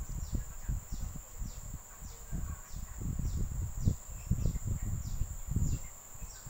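Soft irregular rustles and bumps of hands working a crochet hook and cotton yarn close to the microphone. Behind them, short high chirps falling in pitch repeat about every two-thirds of a second over a steady high whine.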